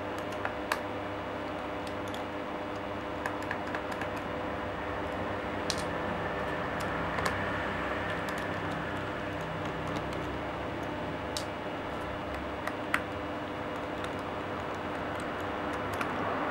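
Scattered light clicks and taps of small screws and a screwdriver on a laptop's plastic bottom case, irregular and a few seconds apart, over a steady background hum.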